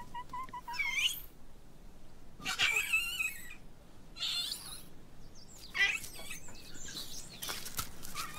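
Infant Yunnan snub-nosed monkeys giving high, wavering squeaks in several short bouts, with quiet gaps between.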